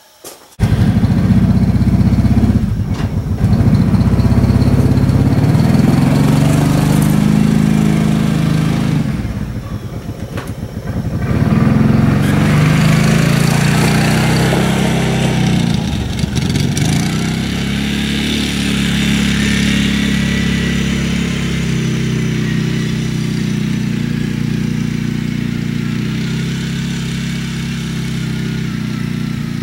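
A vehicle engine starts abruptly about half a second in and runs, its speed and loudness dipping briefly around ten seconds in, then running steadily.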